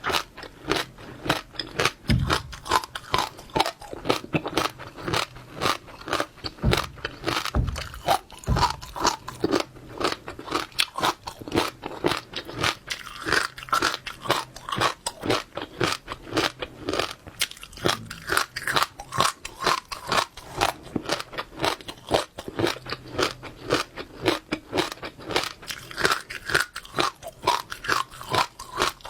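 Close-miked chewing of wet passionfruit seeds: a steady run of crunches and pops as the seeds crack between the teeth, several a second.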